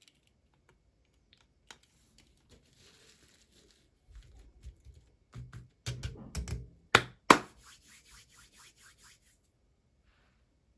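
Hands handling toy packaging: scattered clicks and scratching with some tearing or rustling, two sharp loud snaps about seven seconds in, then a quick run of about eight fading clicks.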